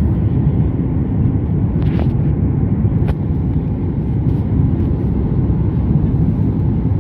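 Steady low rumble of the Boeing 737 MAX 8's CFM LEAP-1B engines and the airflow, heard inside the passenger cabin, with two faint clicks about two and three seconds in.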